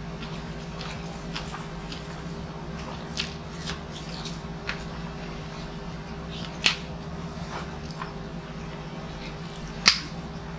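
Close-up eating sounds from a person chewing food eaten by hand: wet chewing with short sharp lip smacks and mouth clicks, the loudest about two-thirds of the way in and near the end, over a steady low hum.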